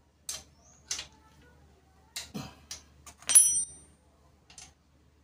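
Scattered metallic clicks and clinks of a spanner working the rear axle and drum-brake fittings of a motorcycle wheel, with one louder ringing metal clank a little over three seconds in.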